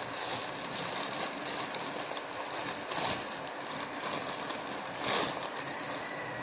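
Plastic bread bag crinkling and rustling as its twisted top is worked open by hand, with louder rustles about halfway and again near the end, over a steady hiss.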